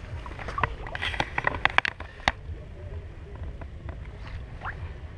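Bass splashing in the water as it is released off the side of a dock: a quick run of sharp splashes between about half a second and two seconds in, over a steady low rumble.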